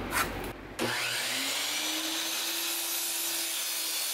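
A knock, then about a second in an electric power tool's motor starts up with a whine that rises in pitch and then runs steadily, beginning to wind down near the end.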